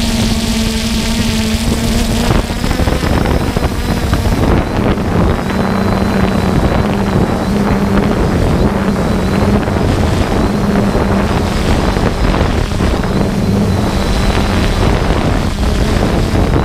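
Quadcopter drone's propellers humming steadily, picked up by its on-board camera, with wind noise on the microphone. The hum drops a little in pitch a few seconds in.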